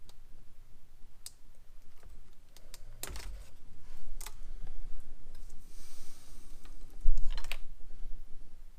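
Scattered clicks and knocks of hand work at a car's steering wheel and column, with louder clusters about three seconds in and near the end, and a brief rasp in the middle.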